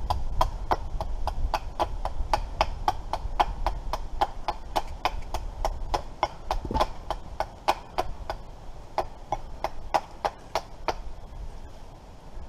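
Knife whittling a small piece of wood by hand: a quick, even run of short sharp cutting clicks, about three to four a second, that stops near the end.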